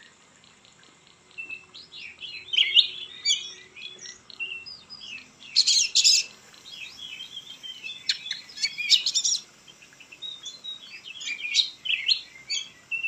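Oriental magpie-robin (kacer) in full song, singing bursts of rapid, varied whistled phrases. It starts about a second and a half in, and the strongest bursts come around the middle.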